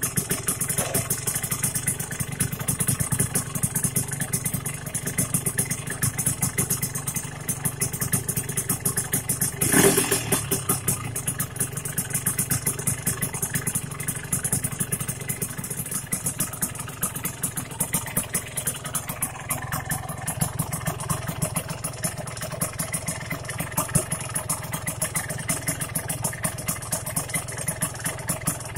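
Yamaha RX-King's air-cooled two-stroke single-cylinder engine running at idle, just after a rebuild with a rebored cylinder block and new liner. It is briefly louder once, about ten seconds in.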